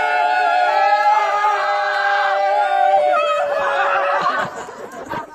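Several people's voices held in long drawn-out yells, overlapping at different pitches. They die away about four seconds in, leaving a quieter jumble of noise.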